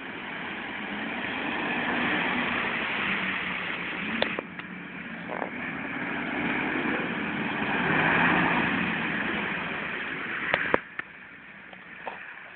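Off-road 4x4 SUV engine running as it drives through shallow floodwater, with water splashing and hissing around the wheels. The engine swells and eases twice, and there are a few sharp knocks, the loudest near the end.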